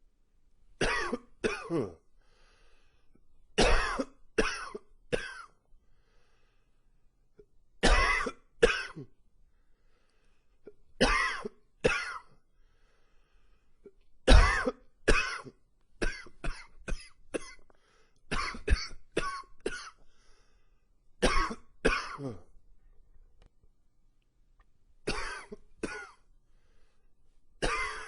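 A man coughing in a long fit: groups of two or three coughs every few seconds, with a quick run of short coughs about halfway through. The uploader puts the cough down to allergies.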